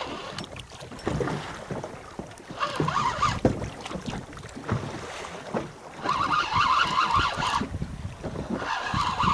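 Wind gusting across the microphone on a small boat at sea, swelling into a rush three times, with scattered light knocks.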